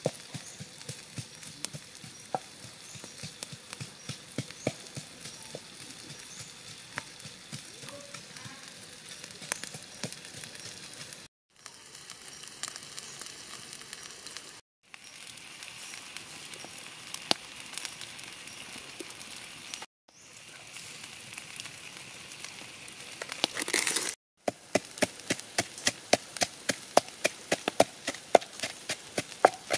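Whole tire track eels sizzling on a hot stone slab over a crackling wood fire. Near the end, a wooden pestle pounds in a wooden mortar, about three sharp knocks a second, the loudest sound.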